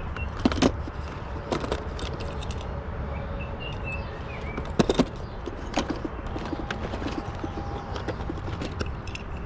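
Small metal die-cast toy cars clicking and clacking as they are handled and set down, with a loud pair of clacks about halfway through, over a steady low rumble of a handheld camera being moved.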